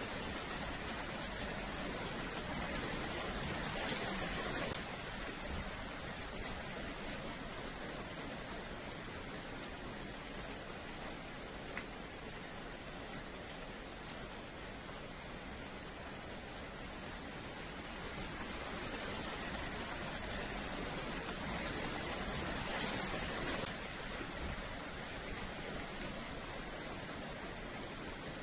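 Steady rain falling on wet paving, swelling louder twice: a few seconds in and again past the middle.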